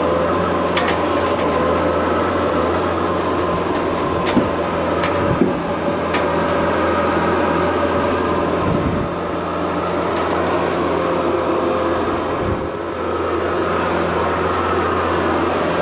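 Engine running steadily at a constant speed, with a few sharp clicks and knocks over it.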